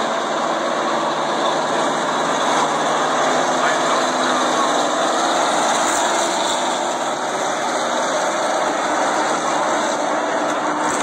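Purestock stock cars racing on a short oval, the engines of the pack running at speed as one steady, dense noise. The sound is brightest about six seconds in, as the cars pass the grandstand.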